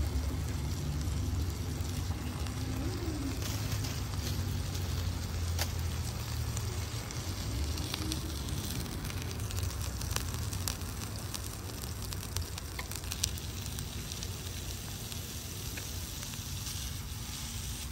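Meat sizzling on a tiny electric grill: a steady hiss with scattered small crackling pops, over a steady low rumble.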